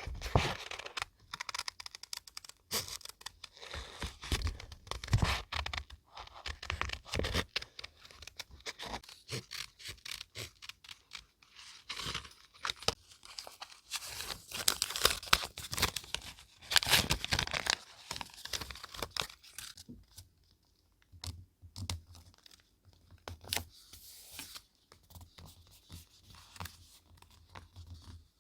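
Close-miked paper being torn and handled in irregular strokes, the loudest run about halfway through, with a brief pause around twenty seconds in.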